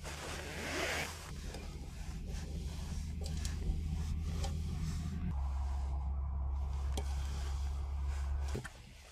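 A hand stirring and squeezing glitter-coated water beads (Orbeez) in a stainless steel pot: the beads rustle and shift against each other and the pot, with scattered small clicks. A steady low rumble underneath cuts off suddenly near the end.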